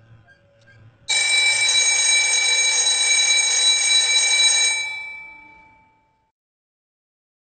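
School bell ringing, one continuous ring that starts suddenly about a second in, holds steady for about three and a half seconds and then fades away. It is the bell that ends the exam.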